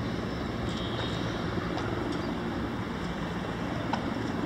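Steady low rumble of vehicle noise, with a few faint ticks.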